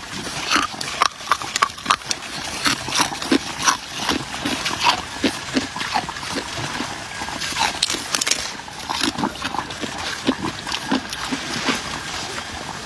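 Hard clear ice being bitten and chewed: a dense, irregular run of sharp cracks and crunches.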